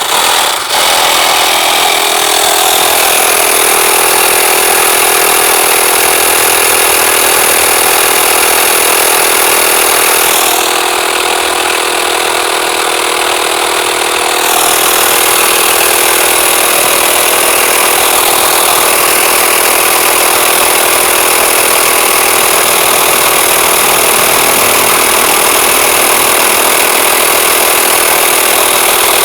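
12-volt tyre compressor, powered from a van battery, starting up and running steadily and loud as it pumps up a new inner tube.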